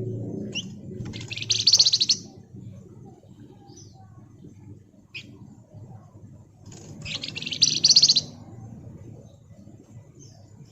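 A flamboyan (Javan fulvetta) songbird singing: two bursts of rapid, tightly packed high chattering notes, each about a second long, some five seconds apart, with short single chirps between them.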